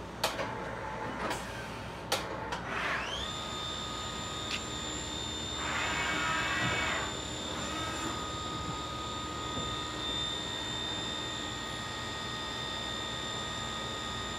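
Haas vertical CNC mill starting its machining program: a few sharp clicks, then the spindle spins up with a rising whine about three seconds in and holds a steady high whine. A short burst of hiss comes around six seconds in.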